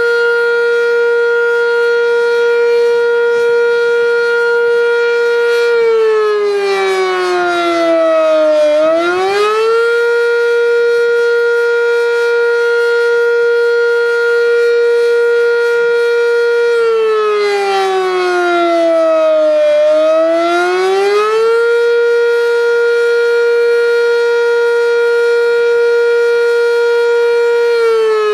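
Sentry 10V fire siren sounding for a test: a loud wail that holds a steady pitch for several seconds, then drops and climbs back up twice, and starts dropping again at the end.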